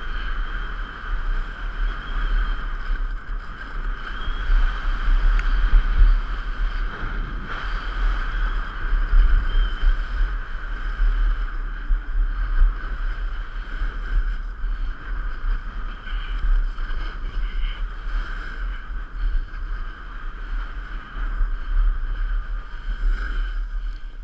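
Wind buffeting a GoPro camera's microphone on a downhill run over snow: a gusting low rumble that rises and falls, over a steady hiss of skis or board sliding on the snow.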